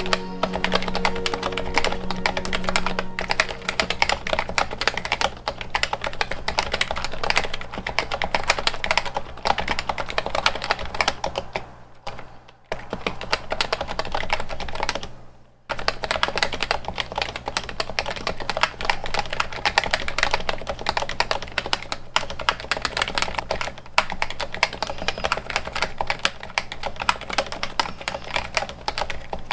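Typing test on an HHKB Topre keyboard rebuilt in a Heavy Grail aftermarket housing with a machined switch plate, its Topre switches modded to take MX keycaps: fast, continuous keystrokes with two brief pauses about halfway through.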